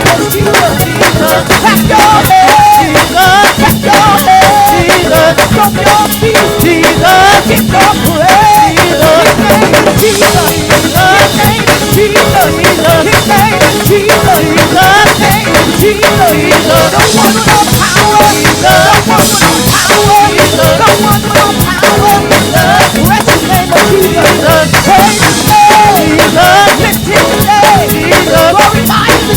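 Live gospel praise band playing a fast, driving groove: a drum kit with rapid, steady snare and cymbal strokes under a bending melodic line.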